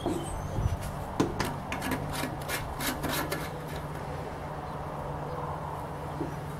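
A gallon metal can of paint reducer being tilted upright and handled on a wooden table: a run of short scrapes and knocks in the first few seconds.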